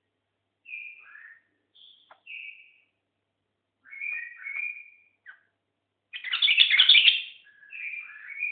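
White-eared bulbul singing short whistled phrases with pauses between them. The loudest, rougher phrase comes about six seconds in.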